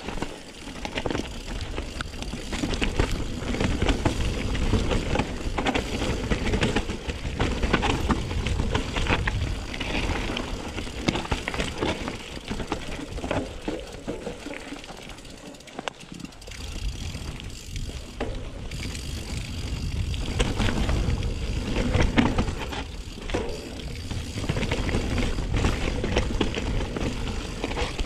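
Mountain bike riding over a rough trail, heard from the rider's chest: a steady rush of tyre noise with many small rattles and knocks from the bike. It swells and fades with the terrain, easing for a few seconds about halfway through.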